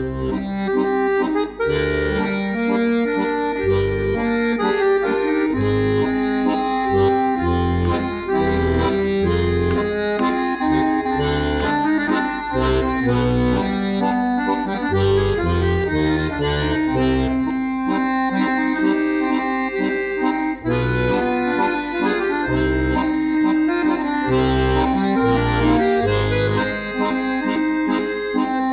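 Music led by a button accordion (bayan), with a bass line underneath.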